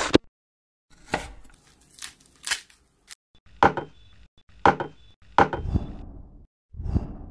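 Ingredients set down one after another on a tabletop: a round fruit, a glass bowl of pomegranate arils and a carton of fresh cream. About seven sharp knocks and taps, each with a short tail, separated by abrupt dead silences.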